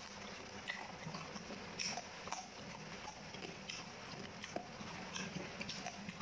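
Close-miked chewing of beef curry, with irregular wet mouth clicks and lip smacks.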